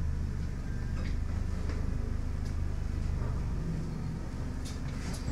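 Alexander Dennis Enviro200 Dart single-deck bus heard from inside the saloon: the diesel engine runs with a steady low hum, with a few light clicks and rattles from the interior.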